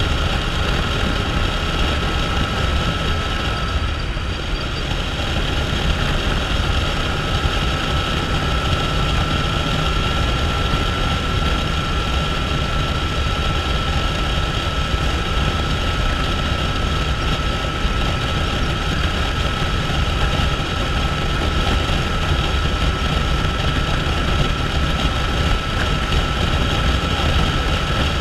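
Motorcycle cruising steadily at highway speed on a wet road: a constant engine drone with a steady high whine over it, mixed with wind and road noise.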